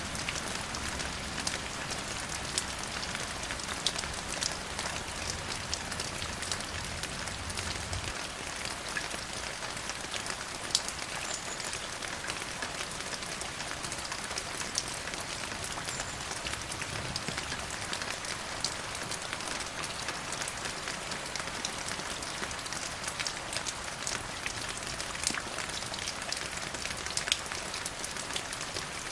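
Steady rain falling, with many separate drops ticking sharply on a hard surface over a continuous hiss. A low rumble underneath stops about eight seconds in.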